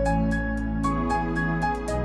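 Background music: sustained melodic notes over a steady bass, with light ticks about four a second.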